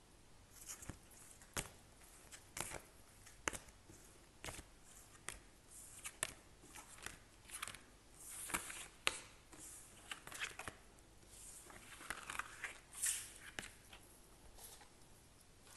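Tarot and oracle cards being gathered up by hand off a table: a string of light taps and clicks with short papery slides as the cards are picked up and stacked.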